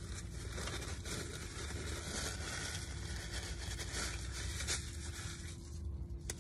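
Paper food wrapping crinkling and rustling as it is handled.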